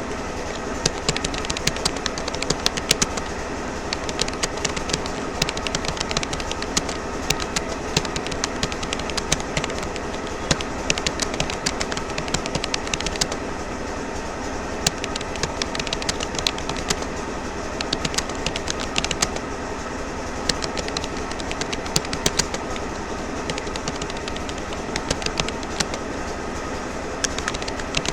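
Continuous touch typing on a Rapoo computer keyboard: a steady, irregular stream of rapid key clicks over a constant background hum.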